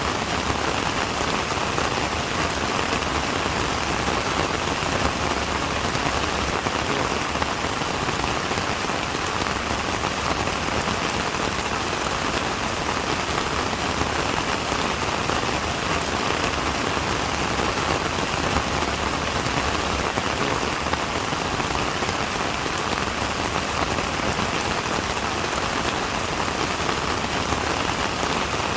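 Steady rain falling and pattering on a surface, an even dense hiss of drops that neither swells nor fades.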